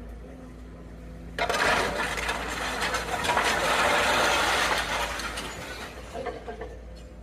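Building being torn down by a heavy demolition machine. Its engine runs steadily, then about a second and a half in concrete and rubble break and crash down loudly for several seconds before fading.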